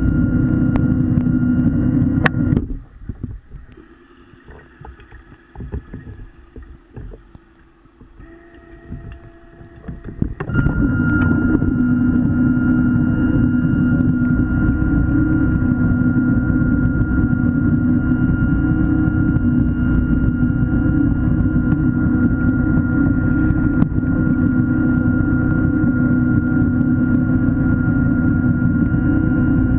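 Underwater scooter (diver propulsion vehicle) motor running with a steady whine heard through the water. It cuts out about two and a half seconds in and starts again about ten and a half seconds in, then runs evenly.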